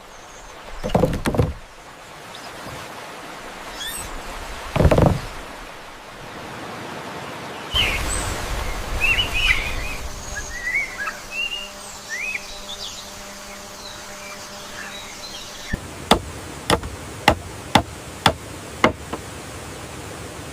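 Birds chirping for a few seconds, then six sharp knocks about half a second apart, over a steady outdoor background that changes abruptly between shots.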